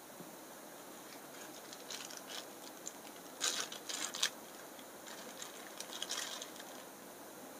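Crinkling of a small foil snack packet being handled in the hands: irregular crackly rustles, loudest about three and a half to four seconds in.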